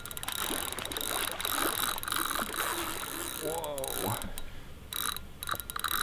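Fixed-spool fishing reel's drag clicking rapidly as a hooked wels catfish pulls line off the spool, broken by short pauses in the second half. A brief voice sound about three and a half seconds in.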